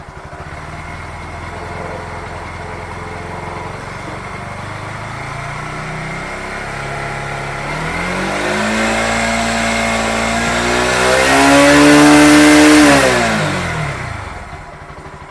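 Bajaj Pulsar NS160 BS6's single-cylinder fuel-injected engine idling steadily, then revved up slowly under gradual throttle, held high for a couple of seconds and let fall back to idle without stalling. It takes the throttle cleanly, the sign that the stalling fault is cured now that the clogged fuel pump has been cleaned.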